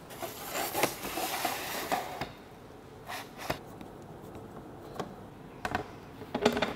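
Handling noise from putting together a laser enclosure's frame and panels: a scraping, rustling stretch lasting about two seconds near the start, then a few separate clicks and knocks, with a small cluster of them near the end.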